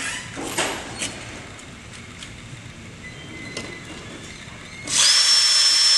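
A few light knocks and clicks as a screw and stainless steel mesh are handled, then about five seconds in a cordless drill starts up and runs at a steady high speed with a constant whine, driving a wood screw through the mesh.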